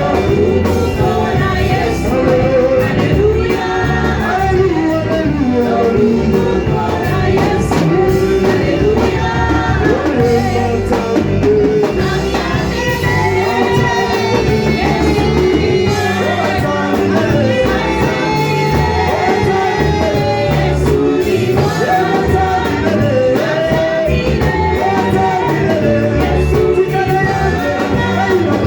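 Worship song in a church service: singing voices carrying a melody over instrumental accompaniment with a steady beat.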